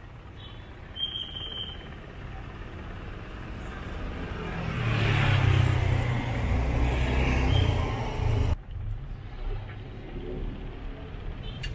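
Road traffic going by: a vehicle engine rumble swells up and passes about five to eight seconds in, then the sound drops off suddenly. A brief high-pitched tone sounds about a second in.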